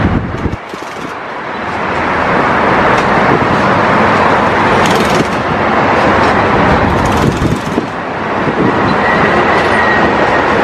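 Loud, steady machinery noise from rail-laying equipment running, with a few short knocks about five and seven seconds in.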